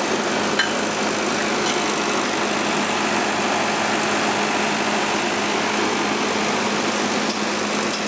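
Nilgiri Mountain Railway X-class steam locomotive 37398 standing with steam hissing steadily, over a constant low hum.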